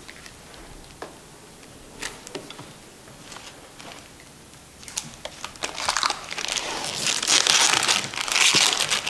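A few light knocks, then from about five seconds in, loud crinkling of clear plastic wrap being pulled off by hand.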